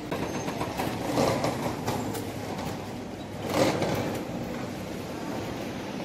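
Steady background noise of a large shopping mall interior, with two brief louder swells about a second in and about three and a half seconds in.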